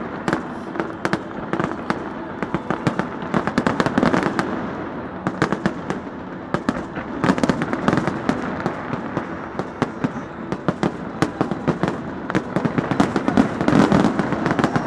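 Fireworks going off in rapid, continuous volleys of bangs and crackle, with the thickest bursts about four, seven and thirteen seconds in.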